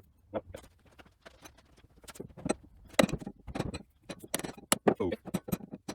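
Light hammer taps on a pin in the spring-loaded linkage of a Little Giant power hammer, an irregular series of sharp metallic clinks, some ringing briefly, the loudest about halfway through.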